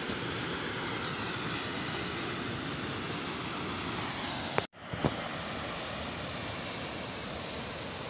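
Steady rushing of a high waterfall's falling water, broken by a sudden brief dropout just past halfway, followed by a short click.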